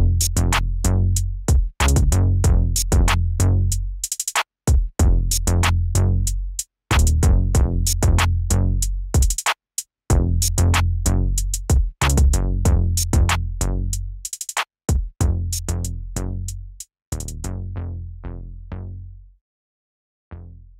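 Background electronic music with a drum-machine beat and heavy bass. About three-quarters of the way through, the high percussion drops out and the track fades away to a brief silence just before the end.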